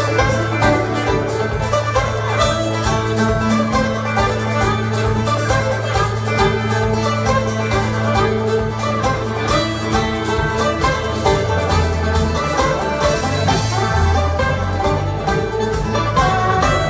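Live bluegrass-style string band music: banjo and guitars over upright bass and drums in a steady, driving rhythm, heard loud from the audience in a theatre.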